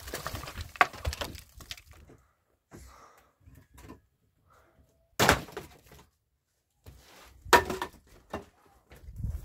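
A few sharp knocks or thuds: one about a second in, a loud one about five seconds in, and another about seven and a half seconds in, with silent stretches between.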